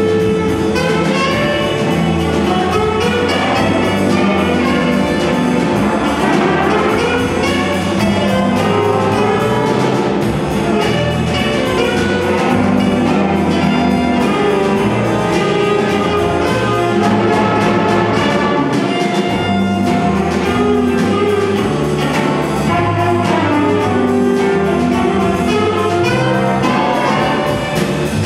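Student jazz big band playing live: saxophones, trombones and trumpets in full ensemble over a drum kit, with no break.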